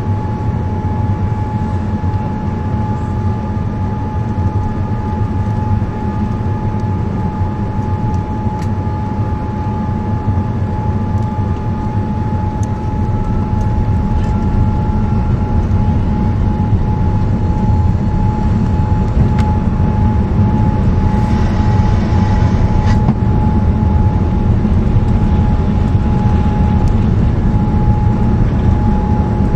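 Cabin noise of a Boeing 787-9 heard inside the cabin, its Rolls-Royce Trent 1000 engines running with a low rumble and a steady whine, during a go-around. The engine noise grows gradually louder about halfway through.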